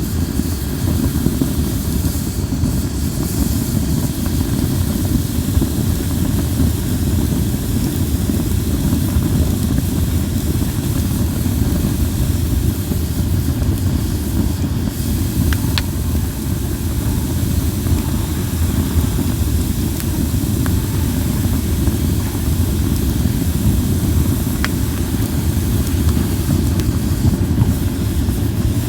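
Linden-wood campfire burning with a steady low rumble of flames, with a faint pop about halfway through and another near the end.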